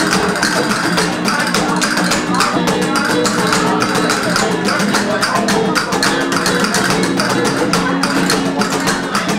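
Live flamenco music: two nylon-string flamenco guitars playing over a cajón, whose sharp strikes keep a quick, dense rhythm.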